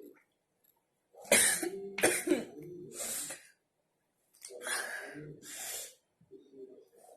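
A young woman coughing and clearing her throat in two bouts, the first about a second in and the loudest, the second about four and a half seconds in.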